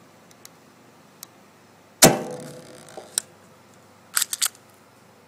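A UHC M9 airsoft pistol firing once about two seconds in, a sharp crack with a ringing tail. A single click follows about a second later, then a quick run of three or four clicks near the end.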